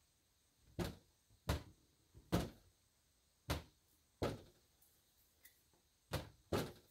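Seven short knocks and thuds at uneven intervals, with two close together near the end.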